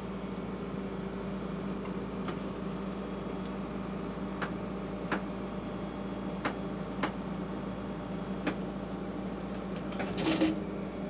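Hitachi 150 excavator's diesel engine running steadily, with about six sharp clicks spaced out over several seconds as the steel track is let down and goes slack.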